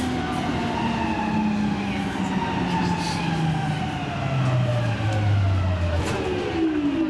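Helsinki Metro M100 train's AC traction drive whining as the train brakes into a station, several tones gliding steadily down in pitch as it slows. Near the end a second set of tones sweeps down more steeply.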